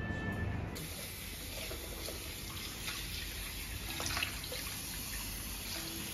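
Tap water running steadily into a basin for a foot wash, with a few light splashes and knocks.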